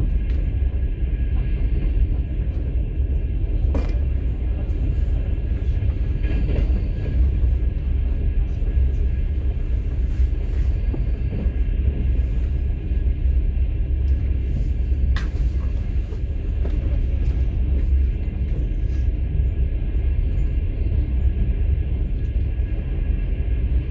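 Steady low rumble of a moving passenger train heard from inside a platzkart open sleeper carriage, with a sharp click about four seconds in and another about fifteen seconds in.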